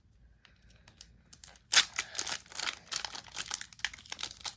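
Wrapper of a Panini USA Baseball Stars and Stripes trading card pack crinkling and tearing as it is pulled open by hand. It is quiet at first, then a dense run of crackling starts a little under two seconds in; the pack is stiff and hard to open.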